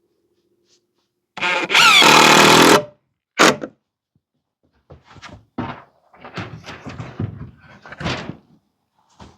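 A power drill-driver runs loudly for about a second and a half, its pitch shifting as it drives a screw into the siding board. A short burst follows, then a run of irregular knocks and clatter from the wood being handled.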